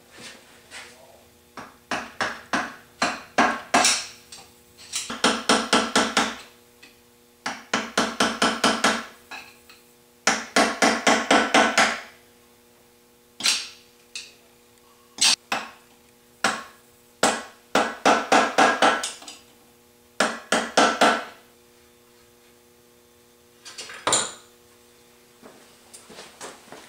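Hammer driving a steel rod against the reverse-threaded flywheel nut of a Zundapp R150S scooter engine to break it loose: rapid runs of ringing metal blows, several a second, in bursts of a second or two with short pauses. A single harder strike comes near the end, then a few light taps.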